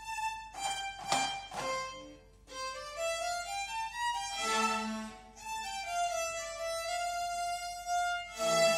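Beginner children's string ensemble of violins and cellos bowing a simple tune together, each note held about half a second to a second as the melody steps up and down. A brief scratchy, noisy patch comes about a second in.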